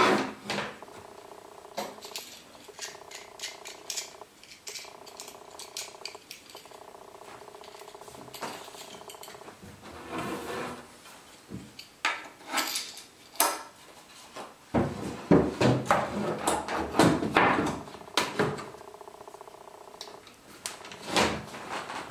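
Wooden boards and parts of a homemade drill-lathe jig being handled on a tabletop: knocks, clatter and sliding, busiest in the second half, with a steady hum underneath.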